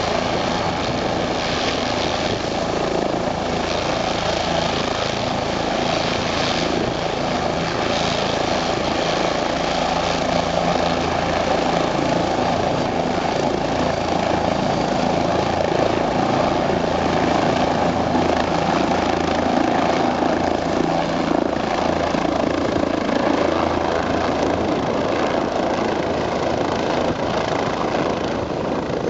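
Bell 407GX helicopter's single turbine engine and four-blade main rotor running steadily on the ground. It lifts off into a low hover late on.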